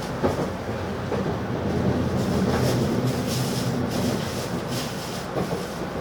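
N700-series 8000 Shinkansen train running, heard from inside the passenger car: a steady, mostly low rumble and hum of wheels and running gear. A few soft knocks come through, and the level swells slightly around the middle.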